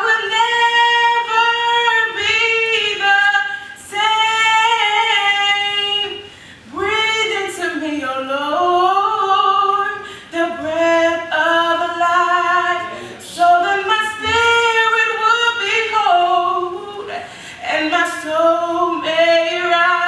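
A woman singing a gospel solo into a microphone, in long held notes that slide up and down, phrase after phrase with short breaths between.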